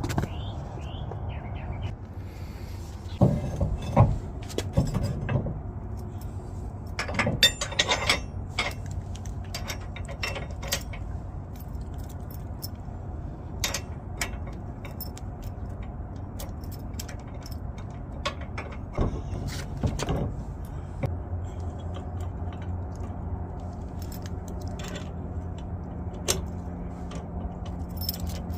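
Metal clinking and knocking of an adjustable drop hitch being worked into a pickup's receiver, in scattered taps with heavier clanks a few times, over a steady low rumble.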